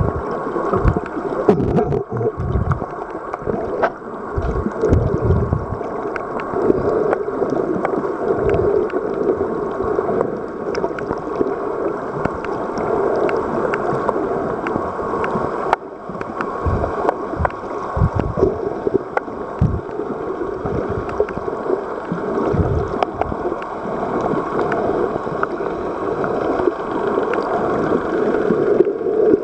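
Underwater sound: water rushing and gurgling past the microphone with a steady muffled drone, irregular low thumps and scattered faint clicks.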